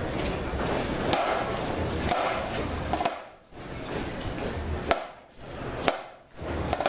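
A marching band moving along without playing: a rough crowd-and-street noise bed with sharp clicks about once a second, which fit a drum's rim clicks keeping the marching step.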